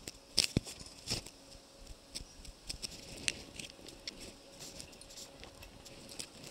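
Irregular light clicks and taps, several a second, over a faint steady hum.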